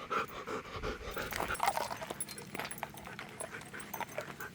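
A dog panting quickly, about four to five breaths a second at first, then more loosely, with a few light clicks: out of breath from playing catch in the heat.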